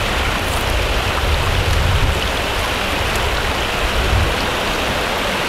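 Steady rushing and splashing of a shallow creek running over rocks.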